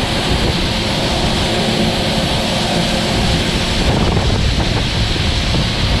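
Wind buffeting the microphone over the steady running of a combine harvester's engine and unloading auger, with shelled corn pouring out of the auger spout into a grain cart.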